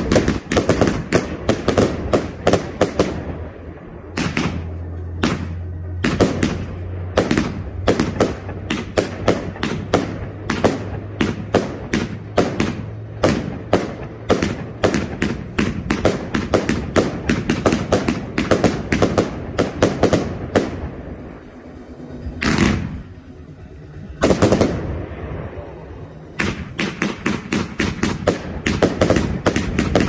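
Fireworks firing in quick succession: a dense run of shots and bursting bangs from aerial shells. About three quarters through it thins to a short lull broken by two louder single bangs, then picks up again.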